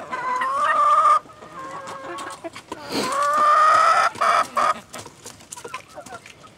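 A rooster crowing twice: a long call of about a second at the start, then a longer one about three seconds in, each rising a little in pitch, with hens clucking in between.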